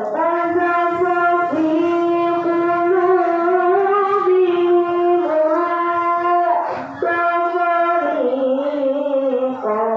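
A boy reciting the Quran in the drawn-out melodic tilawah style into a microphone, amplified over a PA system. His voice holds long notes with slow ornamental turns in pitch. He breaks briefly for breath about 7 s in, then carries on at a lower pitch.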